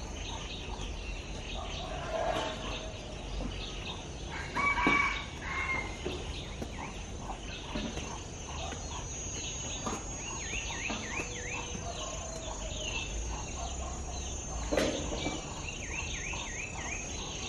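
A rooster crows once about five seconds in, and a small bird chirps in quick rising runs later on. A hoe chops into loose garden soil a few times underneath.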